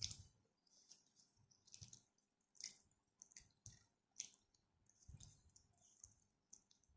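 Faint close-up eating sounds: a person chewing rice and spicy stir-fried chicken, with small irregular wet mouth clicks and smacks.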